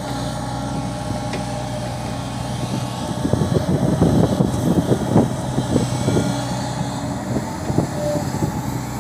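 JCB crawler excavator's diesel engine running steadily under hydraulic load as it digs and swings. From about three seconds in, irregular knocks and clatter join it as the bucket loads soil into a tipper truck.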